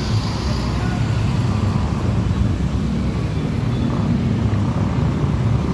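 Steady low rumble of heavy road traffic, with buses and other large vehicles passing close by.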